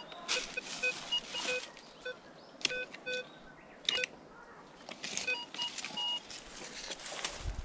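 Handheld metal detector giving repeated short target beeps at several different pitches, low and high, as its coil sweeps over leaf litter, in two clusters with a pause between them. Brief rustles of dry leaves and foliage brushing the coil and shaft.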